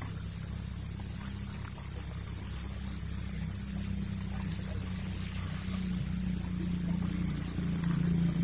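A steady, high-pitched chorus of insects droning without a break, over a low steady hum.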